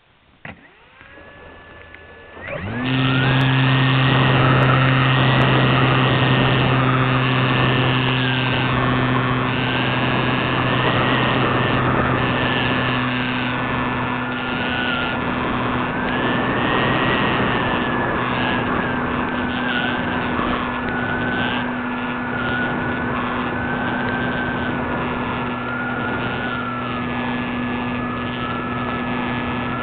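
Model aircraft's motor and propeller spooling up quickly about two and a half seconds in, then running loud and steady with a whine that wavers in pitch, heard from a camera on board, with air rushing over the microphone.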